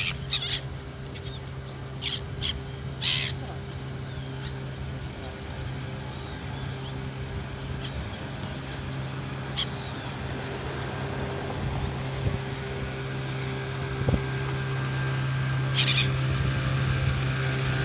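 Gulls calling in short, sharp squawks, several in the first three seconds and once more near the end, over a steady low hum.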